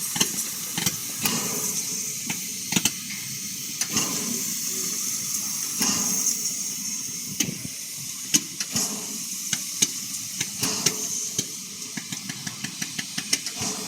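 Steam locomotive Eddystone hissing steadily at a standstill, with irregular sharp clicks and knocks over the hiss that come more often near the end.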